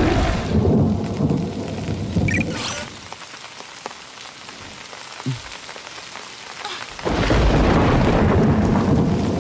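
Rain falling with thunder: loud rumbling for the first three seconds, a quieter stretch of rain hiss, then a sudden loud crack of thunder about seven seconds in that rolls on.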